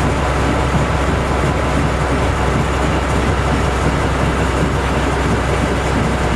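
TU2 narrow-gauge diesel locomotive's V12 diesel engine running steadily under way at slow speed, heard from inside the cab.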